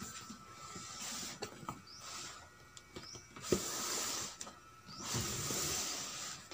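Cardboard model-kit box being handled, turned and slid across a tabletop: several hissing scrapes of cardboard, each about a second long, with a light knock about midway.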